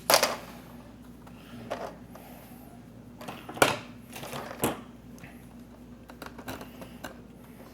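Plastic laptop casing piece being handled and fitted: a handful of sharp plastic clicks and knocks, the loudest at the start and about three and a half seconds in.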